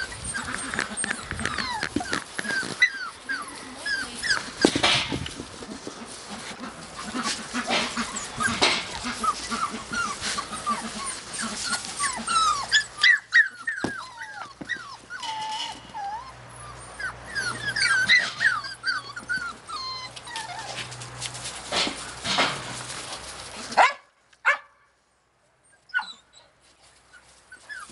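Australian Cattle Dog puppies whining and yipping over and over in short, high, falling calls, with occasional sharper barks. The sound drops away almost completely for a couple of seconds near the end.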